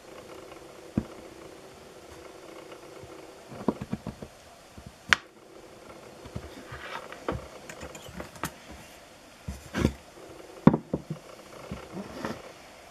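Irregular knocks and taps as a pyrography pen and hands work on a wooden board on a table, over a low steady hum. The sharpest knocks come about five seconds in and again near eleven seconds.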